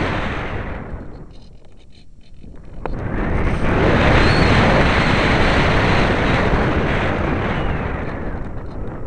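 Wind rushing and buffeting over the microphone of a small camera riding on a Parkzone Radian RC glider in flight. It fades to a low about two seconds in, then swells back up and stays loud, tapering near the end as the glider's airspeed changes while it pitches between sky and ground.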